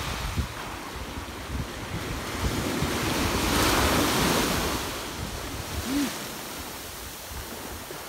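Sea waves breaking and washing up a sandy beach, the surge swelling to its loudest about midway and then ebbing, with wind buffeting the microphone.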